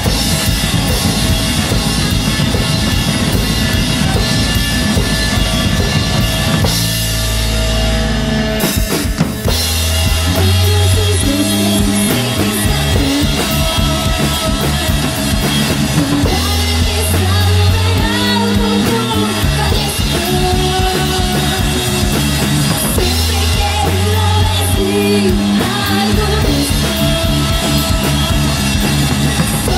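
A live rock band playing: drum kit, bass guitar and electric guitar. About seven seconds in, the drumming breaks off over a held low note for a couple of seconds. The band then comes back in with a steady repeating riff and a woman singing over it.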